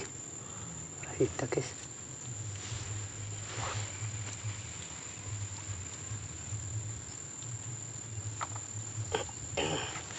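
Insects droning steadily at one high pitch, with a faint low pulsing hum beneath and a few short knocks and rustles.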